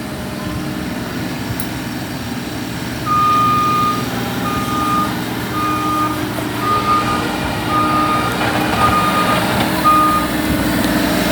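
Bobcat E35 mini excavator's diesel engine running steadily. About three seconds in, its travel alarm starts beeping, about seven beeps roughly once a second, the first longer than the rest, and stops near the end.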